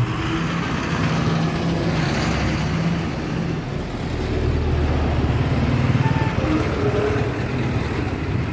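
Road traffic: a vehicle engine running with tyre and road noise, a steady low drone that deepens about four seconds in.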